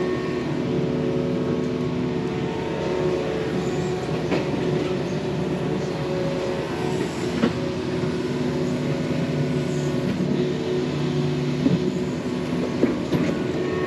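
Yanmar mini excavator's diesel engine running steadily under working load, its note shifting as the hydraulics work, with a few short sharp knocks from the bucket.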